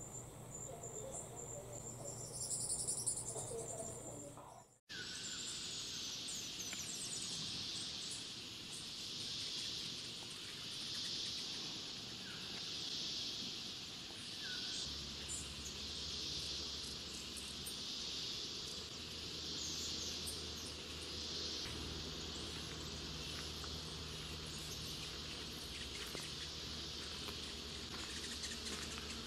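Insect chorus: a high buzzing that swells and fades about every two seconds, with a few short bird chirps. Before it, a thinner steady high insect tone with a short burst of calls, broken off by a sudden cut about five seconds in.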